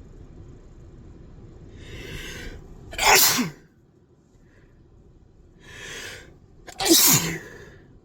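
A person sneezes twice, about four seconds apart. Each sneeze follows a drawn-in breath and ends on a falling pitch.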